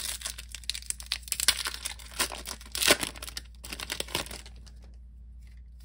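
Foil Pokémon booster-pack wrapper crinkling as it is torn open, a dense crackling that dies down about four seconds in.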